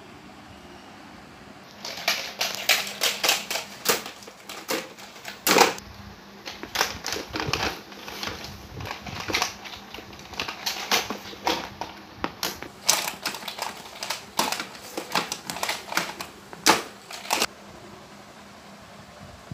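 Hard plastic toys, toy elephant figures and a plastic toy truck with a cage, knocking and clacking against each other and a tile floor as they are handled, in a long run of irregular clicks starting about two seconds in and stopping shortly before the end.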